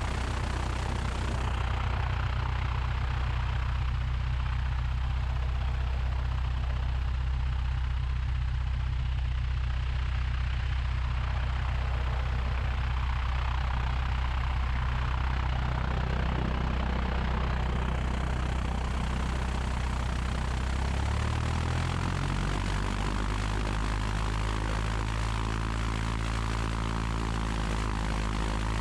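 Four-cylinder Lycoming engine of a 1969 Cessna 172 idling steadily with its propeller turning, during the pre-takeoff run-up checks. About three-quarters of the way through, the engine speed rises a little and then holds.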